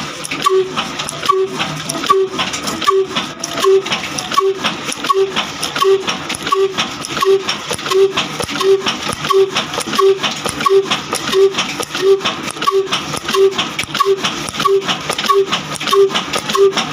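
Old Ruston-type stationary diesel engine, built by Mughal & Son of Daska, running steadily: a fast, even clatter with a short tone recurring about one and a half times a second.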